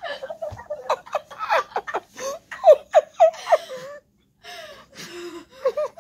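A person laughing in short repeated bursts, pausing briefly about four seconds in.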